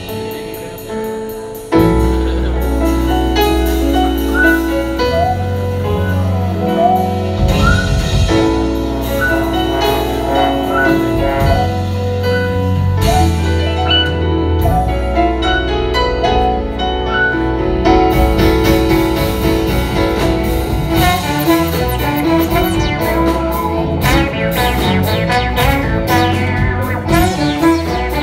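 A recorded song playing, with a bass line and pitched melody that come in sharply about two seconds in after a brief fading lull.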